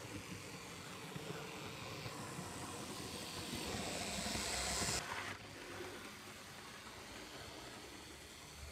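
Hornby Class 25 OO gauge model diesel locomotive running on track, its electric motor whirring and its wheels rattling on the rails. It grows louder as the locomotive passes close by, then drops suddenly about five seconds in.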